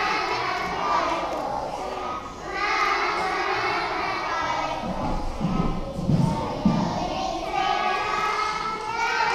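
Many children's voices together in a large hall, with three dull low thumps about five to seven seconds in.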